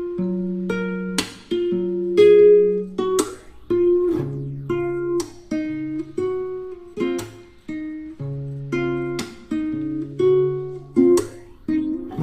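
Background music: a plucked acoustic guitar playing a light, bright tune, with a strummed chord roughly every second.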